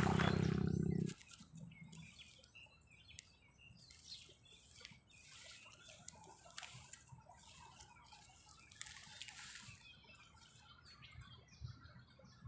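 A loud low rumble that cuts off suddenly about a second in, then faint, scattered high bird chirps and ticks with a thin steady high whine behind them.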